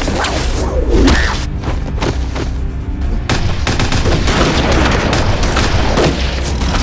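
Rapid gunfire, many shots in irregular volleys, with heavy low booms, over a tense film score.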